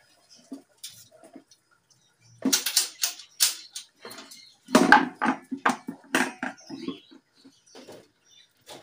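Chihuahua puppies rough-playing: scrabbling paws and small knocks in irregular clusters, a short burst about two and a half seconds in and a longer, louder one around the middle.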